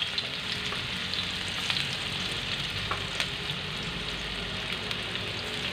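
Chopped onion just added to hot oil, sizzling in a pan: a steady frying hiss with scattered small crackles.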